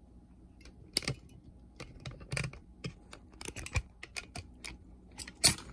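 Handling noise: an irregular run of light clicks and taps from hands moving about the opened boombox, with sharper clicks about a second in and near the end.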